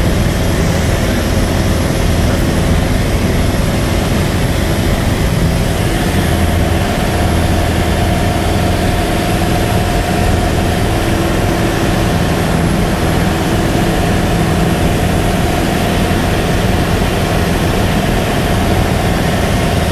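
Single-engine light aircraft's engine and propeller running at a steady, even drone in level flight, heard from inside the cabin.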